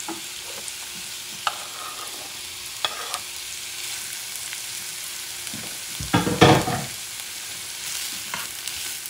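Diced ham, onions and bell peppers sizzling steadily in ghee in a nonstick frying pan, with a few light clicks in the first three seconds as the ham goes in. About six seconds in comes a louder burst of stirring and scraping from a wooden spatula in the pan.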